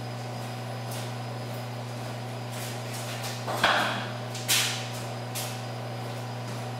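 Steady low electrical hum, with a sharp knock about halfway through and a brighter clatter a second later, from someone handling things out of sight.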